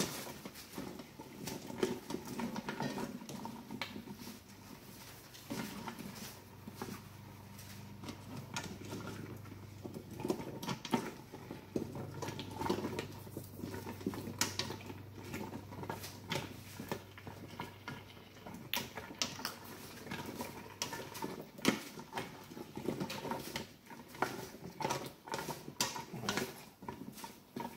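Spatula scraping and tapping against the stainless-steel inner pot of an Instant Pot while vegetables are stirred: irregular scrapes and clicks.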